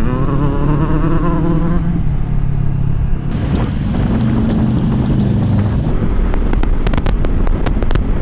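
Honda CB500F parallel-twin engine running under way, with wind noise on the helmet microphone, broken by edit cuts. Wind buffets the microphone in short, sharp gusts through the last couple of seconds.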